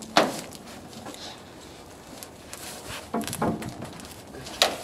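A few sharp clicks and knocks: one just after the start, a short cluster a little past the three-second mark and another near the end, with fainter scattered ticks and rustling between.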